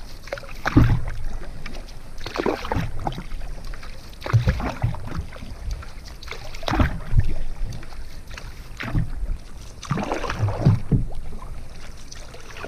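Canoe paddle strokes in calm lake water: the blade dips and pulls with a swish and splash about every two seconds, J-stroke style from a solo paddler.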